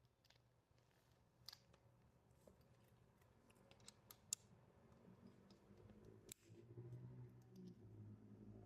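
Near silence with faint, scattered clicks of small metal parts and tools being handled while a 49cc engine's carburetor is put back together. A faint low hum comes up over the last few seconds.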